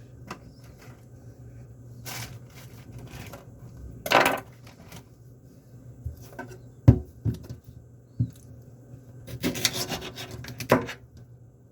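Kitchen knife cutting fruit on a countertop: scattered scraping and rubbing strokes, with a few sharp knocks of the blade hitting the surface partway through.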